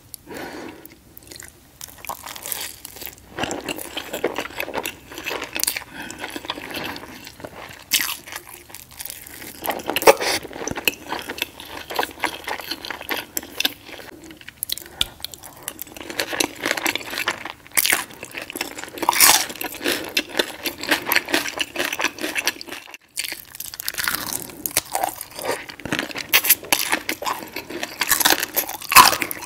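Close-miked chewing and crunching of breakfast food, taken in as syrup-soaked pancakes. Many sharp mouth clicks and crackles run throughout, easing briefly about three-quarters of the way through.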